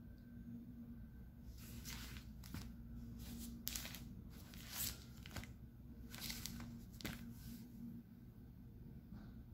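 Crinkly rustling of a diaper's plastic-backed outer layer and absorbent pads being handled and pressed flat, a series of short rustles for several seconds in the middle.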